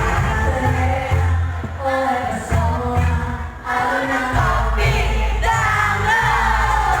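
Pop-style music with singing over a heavy bass beat.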